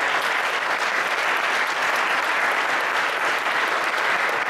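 Lecture-hall audience applauding, steady sustained clapping.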